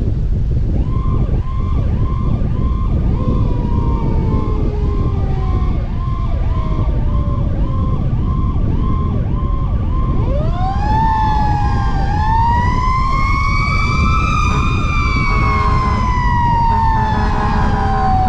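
Fire rescue truck's sirens sounding while responding: a fast yelp cycling about twice a second, then about ten seconds in a deeper wail rises over several seconds and slowly falls away. A steady low rumble of wind on the rooftop microphone runs underneath.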